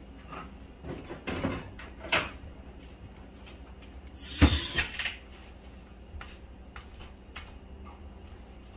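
Knocks, clatter and scraping from handling sink drain pipe fittings and a tool on the trap's metal band clamp. There are a few short knocks early, one loud clattering scrape about halfway through, then small clicks.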